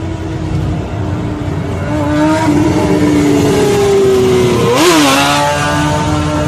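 Road and engine rumble inside a moving car, with a motorcycle engine running close alongside: its pitch slides slowly down, then it revs sharply up and back about five seconds in.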